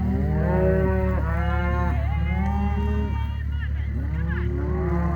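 Red Angus cattle mooing: several long, drawn-out calls one after another, some overlapping, over a steady low hum.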